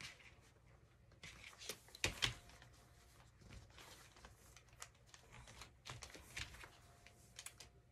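Quiet, scattered rustling and light taps of fabric being folded and pressed flat over a backing board on a tabletop, the loudest handling noises about two seconds in.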